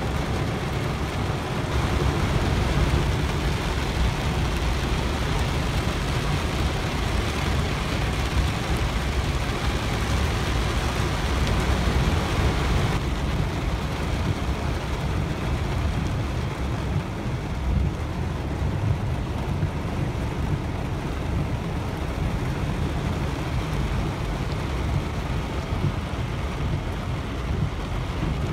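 Heavy rain hitting a car's roof and windshield, heard inside the cabin over the low rumble of the car moving along a flooded road. The higher hiss of the rain drops off about halfway through.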